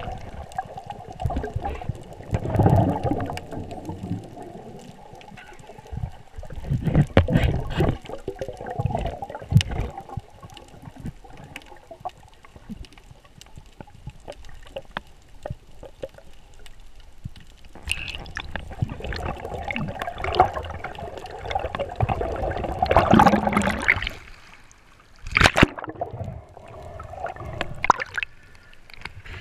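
Water sloshing and gurgling around an underwater action camera during a free dive, muffled by the camera's waterproof housing and coming in surges with quieter stretches between. A sharp splash comes near the end as the camera breaks the surface.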